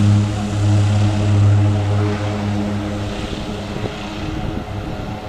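Dornier 228 twin-turboprop engines at takeoff power: a steady, low propeller hum over engine noise. It is strongest for the first few seconds, then fades as the plane rolls away down the runway.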